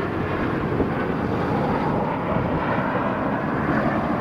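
Jet engines of a four-engine widebody jetliner climbing out after takeoff: a steady, low, even roar.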